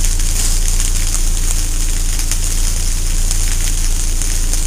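Steady car-cabin noise: a constant low hum under an even hiss, with faint scattered ticks.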